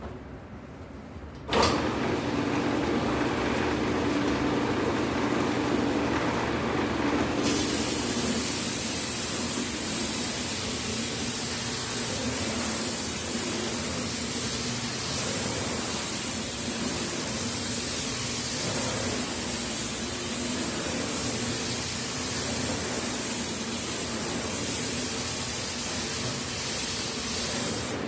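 A 3-axis sanding machine sanding a guitar soundboard starts up abruptly about a second and a half in and runs steadily with a hum under a loud hiss. About seven seconds in a bright, high hiss joins and stays to the end.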